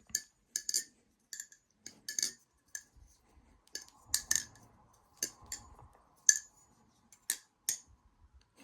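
Balisong (butterfly knife) being flipped: a run of sharp metallic clicks and clacks at uneven spacing as the handles swing around and snap against each other and the blade.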